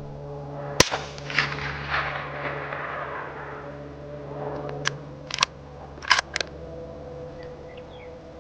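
A single suppressed .308 rifle shot from a bolt-action Ruger American Gen 2 fitted with a Silencer Co Omega 300, with an echo rolling away for a second or two. A few seconds later come several quick metallic clicks as the bolt is worked to chamber the next round.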